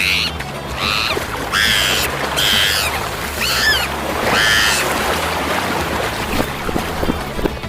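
A string of about six short, high-pitched cries, roughly one a second, each bending in pitch, over a low background bed; they stop about halfway through and give way to a noisier stretch with scattered clicks.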